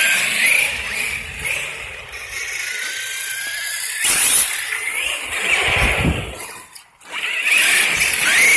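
Brushless electric motors of two RC cars, a Traxxas X-Maxx and a Rustler VXL, whining and gliding up and down in pitch as the throttle comes on and off, with a hiss of tyres throwing water off wet pavement. There is a loud surge about four seconds in.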